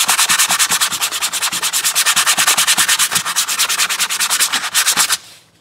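Sandpaper rubbed by hand in rapid back-and-forth strokes over a hardwood block, smoothing down splintered edges. It stops abruptly about five seconds in.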